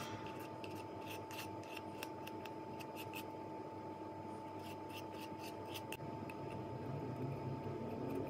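Plastic glue brush spreading white glue on a cardboard tube: two runs of short scratchy strokes, about a second in and again around five seconds. Near the end, softer rubbing as a popsicle stick is pressed onto the glued cardboard.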